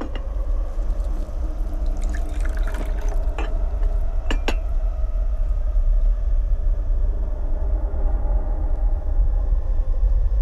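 A low, steady drone of a horror-film soundtrack, with water poured from a glass pitcher into a drinking glass and a few light glass clinks in the first half.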